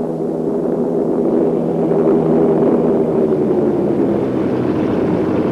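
Four-engined propeller aircraft's piston engines droning steadily as it flies past, the pitch sinking slightly in the second half.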